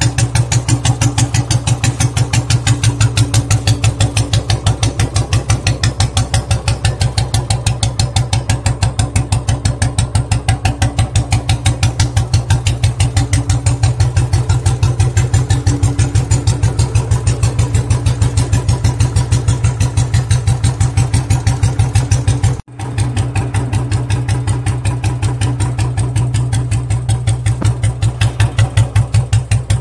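Royal Enfield Bullet 350 single-cylinder four-stroke engine idling steadily through a loud aftermarket 'heavy sound kit' silencer, an even, deep thump. The sound drops out for an instant about two-thirds of the way through.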